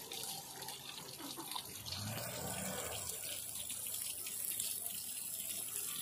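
Water pouring steadily from a tube well's hand-pump spout and splashing onto the concrete platform, flowing on its own without the handle being worked, while a plastic bottle is held under the stream.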